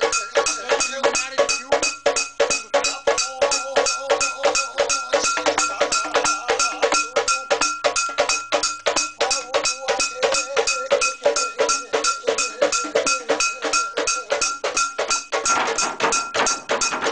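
Metal gongs struck in a fast, even beat, about four strikes a second, each stroke leaving a bright metallic ring. The sound grows fuller and rougher about a second and a half before the end.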